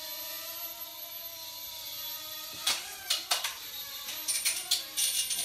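Small toy quadcopter drone's motors whining steadily over a high hiss, cutting out about two and a half seconds in. A run of sharp clicks and knocks follows.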